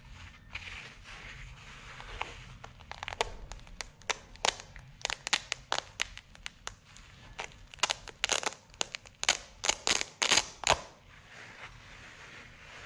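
Rustling of a fabric reel cover handled in gloved hands, with a run of sharp crackling clicks that grows denser and louder towards the middle and dies away near the end as the cover is pulled open and off the reel.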